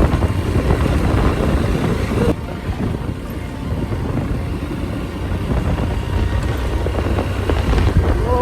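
Motorcycle running while riding along, engine noise mixed with wind rush on the microphone; it gets quieter and duller a little over two seconds in.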